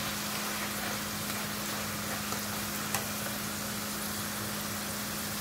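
Thin potato slices deep-frying in hot oil, sizzling steadily, nearly golden brown. A steady low hum runs underneath, and there is a light click about three seconds in.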